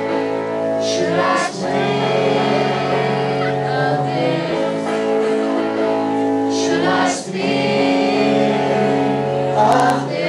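Live band music heard from the audience: a singer with guitar accompaniment over sustained chords that change about every three seconds.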